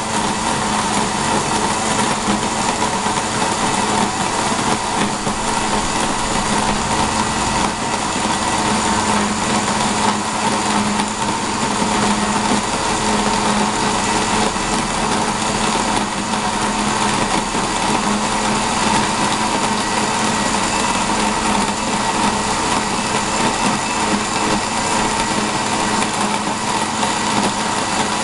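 A small motor-driven machine running steadily without a break, with a constant hum and whine.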